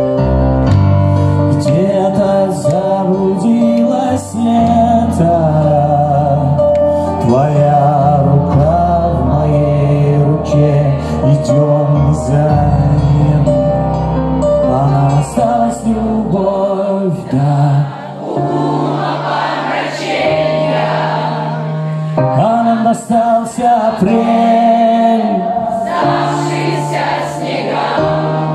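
Live band playing a ballad with keyboards, bass and drums, with singing over it.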